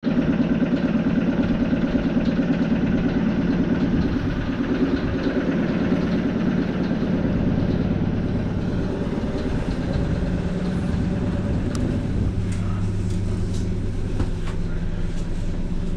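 A suburban electric train stands at the platform, its onboard equipment humming steadily with a fast pulsing that is strongest in the first few seconds. A few light clicks and knocks come near the end.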